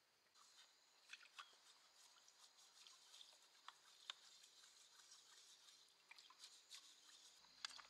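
Near silence with faint, scattered small clicks and ticks.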